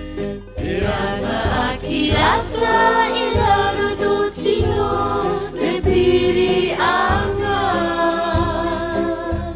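Background music: a song in Cook Islands Māori sung by a group of voices over a steady bass line.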